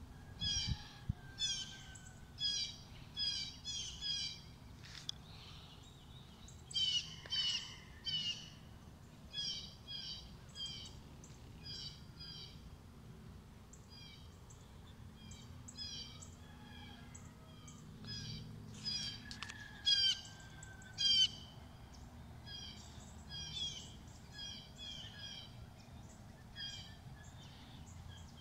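Birds chirping in many short, high, repeated calls, often in quick runs of three or four, over a faint steady low hum.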